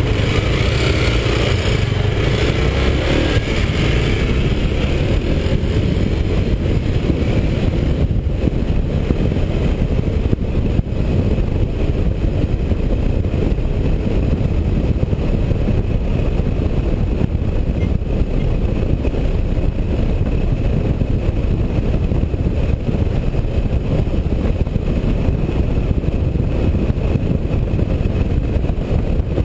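Honda CBX 250 Twister motorcycle's single-cylinder engine pulling away, stronger for the first few seconds, then running steadily at cruising speed under a constant rush of road and wind noise on the helmet-mounted microphone.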